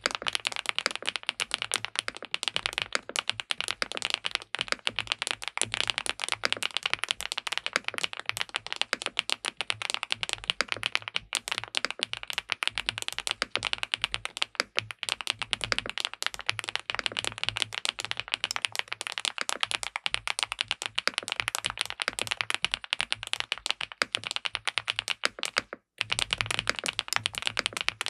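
Fast, continuous typing on an SPM PL87W (Mongdol 87) tenkeyless mechanical keyboard with linear switches: a dense stream of keystroke clacks that breaks off for a moment near the end.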